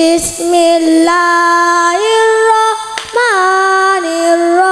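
A boy reciting the Qur'an in melodic tilawah style, amplified through a microphone. He holds long, drawn-out notes that step up in pitch, with a short breath break about three seconds in.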